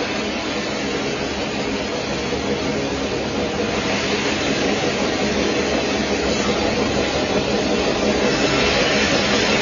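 Sawmill band saw running and cutting through a large log: a steady rushing noise with a low hum under it, growing a little louder near the end.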